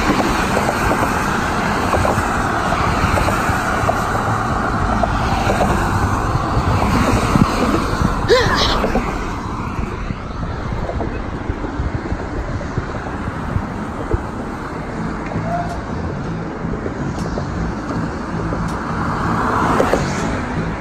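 Road traffic on a highway bridge: a steady rush of tyres and engines as cars and trucks pass close by, with a brief high squeal about eight seconds in and a vehicle swelling louder as it goes past near the end.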